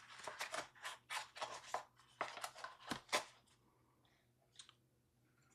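Small cardboard accessory box scuffing and rubbing against a foam packaging insert as it is pushed into its slot: a brisk run of short scrapes for about three seconds, then one light tap near the end.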